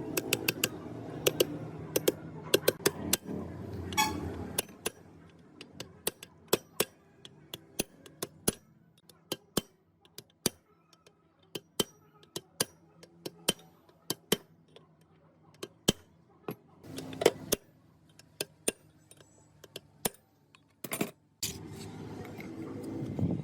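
Metal gearbox parts and hand tools clinking and tapping against each other in a string of sharp, irregular clicks, with a low hum underneath for the first few seconds.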